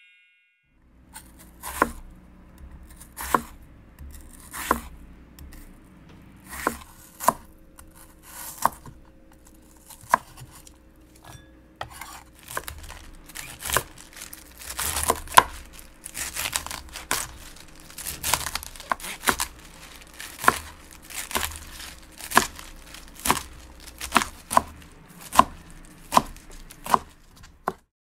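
A knife cutting through crisp Chinese cabbage onto a wooden cutting board: separate crunching cuts, each ending in a knock on the board. They are slow and spaced out at first, then come quicker and closer together, over a faint steady hum.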